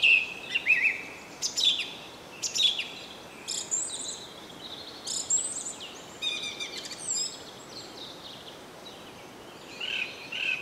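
Songbirds singing in short, chirping phrases roughly every second, with a pause near the end before more calls, over a steady outdoor background hiss.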